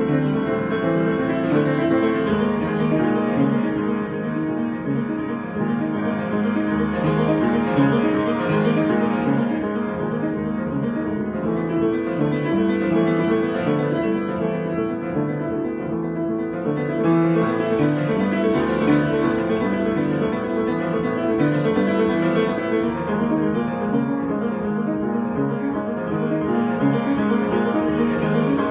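Improvised solo piano music: a continuous stream of notes and chords played without pause.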